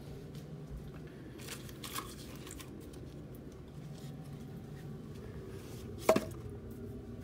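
Split firewood being handled at a fireplace: a few light scrapes and knocks, then one sharp knock with a brief ring about six seconds in, as the wood is set down.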